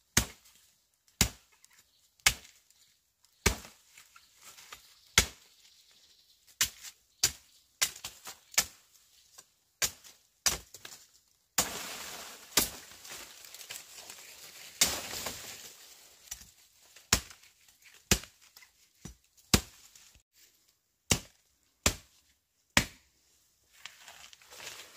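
Chopping with a blade on wood: single sharp strikes, unevenly spaced at roughly one a second. A few seconds of scraping rustle come in about halfway through.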